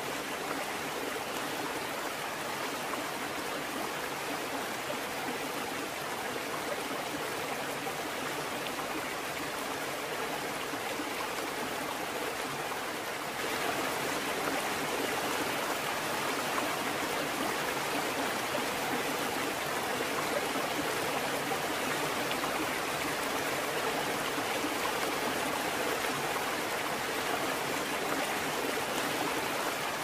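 Steady rush of running water, stepping up louder about thirteen seconds in.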